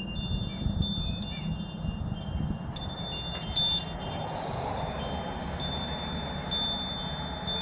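Metal wind chimes ringing in the wind, several tones overlapping and lingering, over a low rumble. The chimes are stirred by the wind that comes ahead of a snowstorm.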